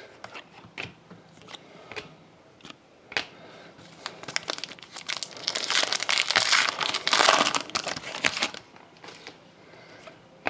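A foil trading-card pack wrapper crinkling and tearing as it is ripped open, loudest from about four to eight and a half seconds in, with small clicks and rustles of cards being handled before and after.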